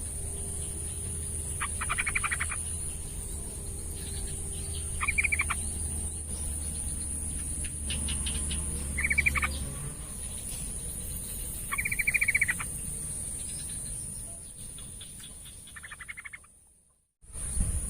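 Yellow-vented bulbul giving short chattering calls, five in all, each about half a second long and a few seconds apart, over a steady high-pitched whine. The sound cuts out briefly near the end.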